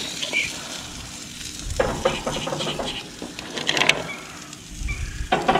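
Hard-shell clams clattering in a plastic bowl and being set down on a heated grill grate, a few short shell clicks over a steady hiss.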